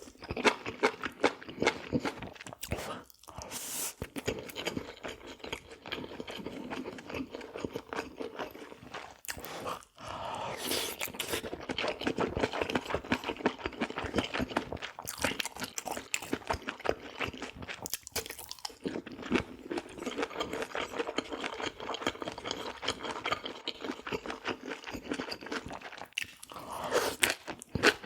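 A person chewing and crunching food with many rapid, irregular mouth clicks and crackles, broken by a few brief pauses.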